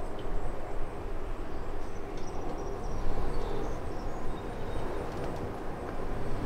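Outdoor ambience: a steady, noisy rumble heavy in the bass, with a few faint high chirps in the middle.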